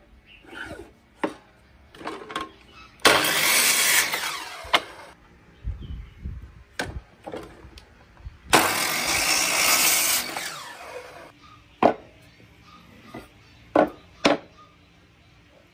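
Electric miter saw making two cuts through hardwood strips, each about two seconds long, the motor winding down after each. Sharp wooden knocks of boards being handled and set down come in between.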